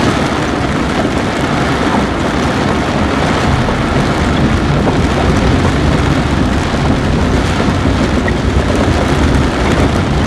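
A vehicle driving on a wet gravel road in rain: steady engine and tyre noise with rain noise, heard from inside the vehicle.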